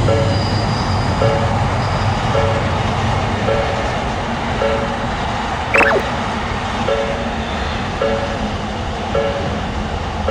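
Japanese railroad crossing's electronic warning bell ringing about once a second, each ring a short two-tone clang, over the low rumble of a passing electric train. A brief high squeal comes about six seconds in.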